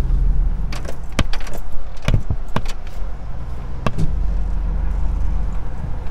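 Pickup truck driving, heard from inside the cab: a steady low engine and road rumble, with a dozen or so sharp clicks and rattles as the truck bumps along a rough road.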